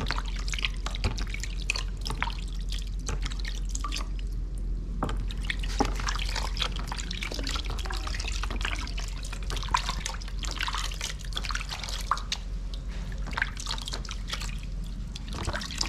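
Bath water splashing and dripping in a plastic washbasin as a hand scoops it over a baby monkey: many small, irregular splashes and drips.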